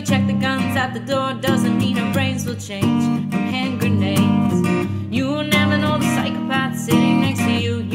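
Background music: strummed acoustic guitar with a sung melody over it.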